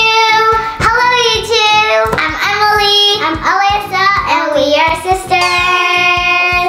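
Children singing a short intro song over backing music with a steady beat; near the end it closes on a held chord with gliding, sweeping tones.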